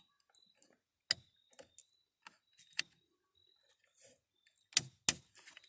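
Sharp plastic clicks and taps as a car's interior door handle assembly is handled and its lock cable fitted, a few spaced clicks with the two loudest close together near the end.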